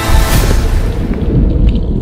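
Cinematic background music with a heavy, deep bass. A brief splash-like rush of noise sweeps through just after the start.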